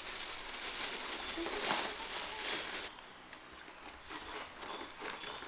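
Plastic bag crinkling and rustling as a baby monkey rummages in it, stopping abruptly about three seconds in; after that only faint quieter sounds.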